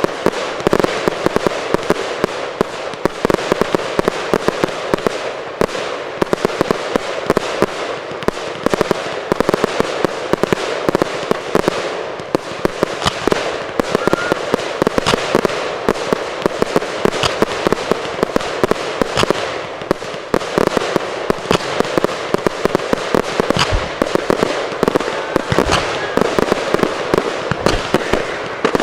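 Fireworks display going off continuously: a dense, rapid crackle of many small bursts, with louder single bangs standing out now and then.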